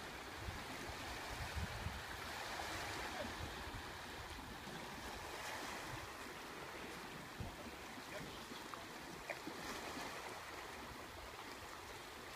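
Steady wash of sea surf on a rocky shore, with wind rumbling on the microphone, strongest in the first couple of seconds.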